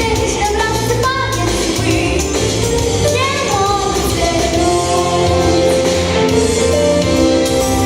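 A song sung solo over instrumental accompaniment with a steady bass line. The voice slides between notes early on and holds longer notes in the second half.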